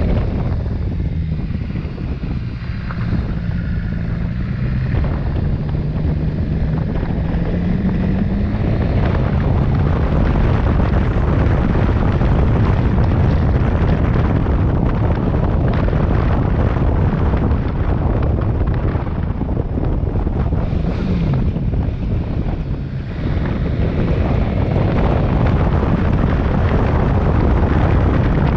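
Motorcycle riding along with its engine running, rising in pitch over the first several seconds as it speeds up. After that, loud wind noise on the microphone mostly covers the engine, with a short drop in level a little after twenty seconds in.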